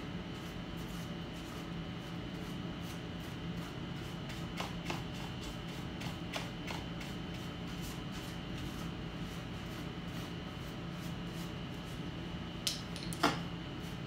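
Paintbrush bristles sweeping dust off the exposed internals of an opened iMac: faint scratchy strokes over a steady background hum, with a few light knocks, the two sharpest near the end.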